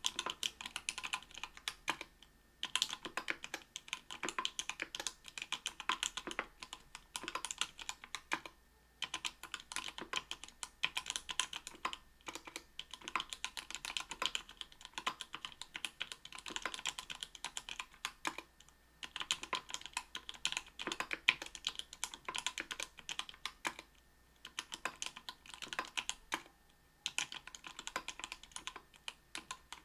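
Typing on an Octagon V3 mechanical keyboard with lubed Everglide Sky Blue 55 g linear switches, an aluminium plate and GMK keycaps: a dense stream of keystroke clacks, broken every few seconds by short pauses.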